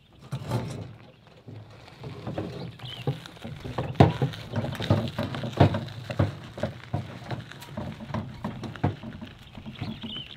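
Wheelbarrow rolling over rough gravel and stones, its wheel crunching and its load rattling in a dense run of irregular knocks.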